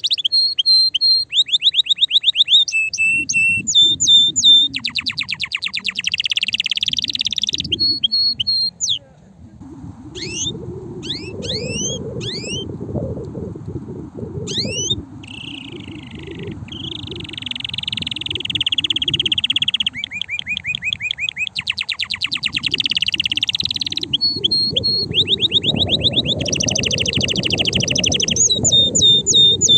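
Male canary singing an excited song of rapid trills: each run repeats one note quickly at a fixed pitch, then switches to a new run every second or two, with a stretch of quick upward-sweeping notes near the middle. A low rumbling noise sits under the song for most of the time.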